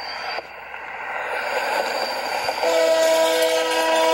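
Canadian National freight locomotive approaching with a rising rumble, then its air horn sounding a steady chord from about two-thirds of the way in. It is heard played back through laptop speakers.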